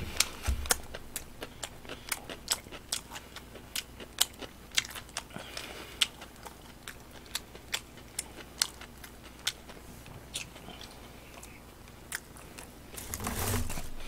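Close-miked chewing of roast chicken: wet mouth clicks and lip smacks come irregularly, two or three a second. There is a brief rustle near the end.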